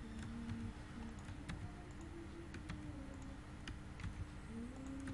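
Faint computer keyboard and mouse clicks, a handful of short, sharp, irregularly spaced clicks.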